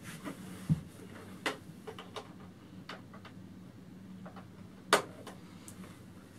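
Scattered plastic clicks and knocks from the keys and handling of an electronic keyboard that makes no notes because it is not plugged in or switched on. The sharpest knock comes about five seconds in, over a faint steady low hum.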